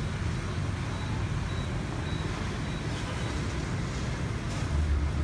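Scooter and motorbike traffic passing on a wet city street: a steady engine rumble with tyre hiss, growing louder near the end.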